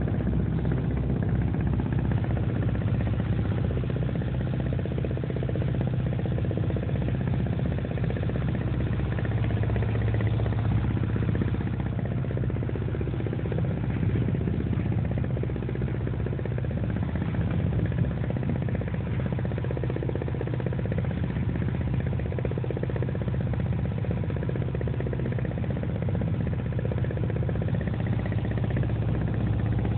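Volvo Penta MD11C two-cylinder marine diesel running at a steady cruising speed, a continuous even drone.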